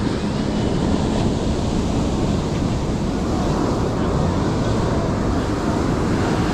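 Surf breaking and washing onto the beach, a steady rushing noise, with wind buffeting the microphone.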